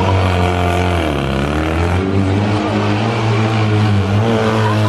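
Fiat 126p rally car's engine revving hard under acceleration. Its pitch dips about a second in, climbs and holds high, then dips again near the end.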